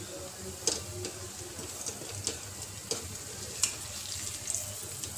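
Urad dal bhallas deep-frying in hot oil in a kadai: a steady sizzle, with a metal slotted spoon clicking against the pan a few times as the fritters are turned and lifted.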